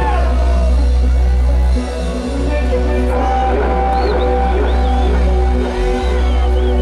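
Live music played loud through a stage sound system, with a heavy, steady bass that drops out briefly twice.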